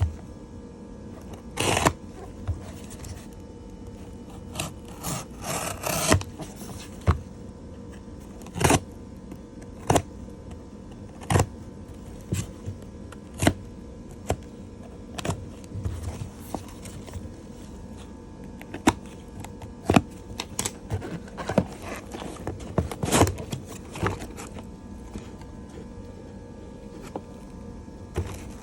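Hands opening a coin shipping box: scattered scrapes, rubs and sharp clicks of cardboard and packaging being handled as the graded coin is unpacked, busiest near a quarter of the way in and again near the end.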